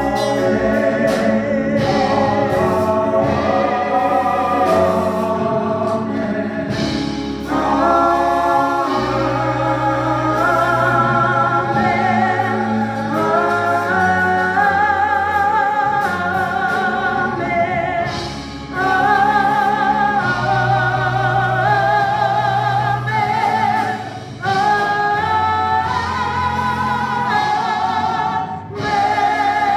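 Gospel choir singing with instrumental accompaniment and a steady bass line, the voices holding long notes with vibrato.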